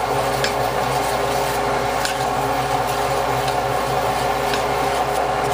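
A steady mechanical hum made of several fixed tones, with a few faint scrapes of a wooden spoon stirring a flour-and-butter roux in a cast iron Dutch oven.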